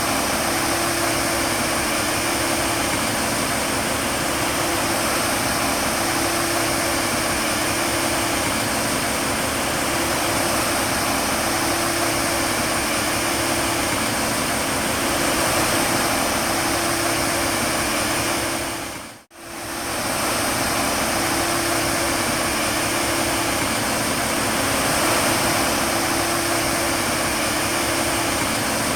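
Steady machine running noise with a low hum and a high whine. It dips out briefly about two-thirds of the way through, then resumes.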